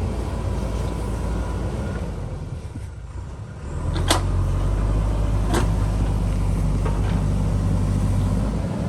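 JCB backhoe loader's diesel engine running, dipping briefly and then revving up louder under load about four seconds in. Three sharp knocks come over the following three seconds.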